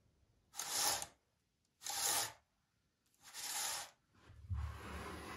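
Saw chain being pulled by hand along its guide bar, the links and cutters sliding in the bar groove with a dry rasping rattle, in four short strokes about a second apart, just after the chain has been tensioned.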